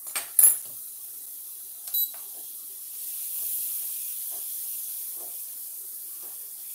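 Scallops and butter sizzling in a hot stainless-steel skillet, a steady hiss that swells about three seconds in. Sharp metal clicks of tongs against the pan come near the start and once more about two seconds in.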